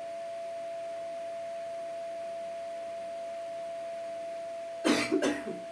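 A steady single-pitch whine, constant in level, with a short burst of noise about five seconds in.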